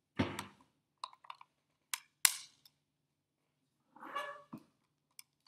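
Handling noise from something small taken from a pocket and moved about: a thump, then a few sharp clicks and knocks, and another rustle and thump about four seconds in.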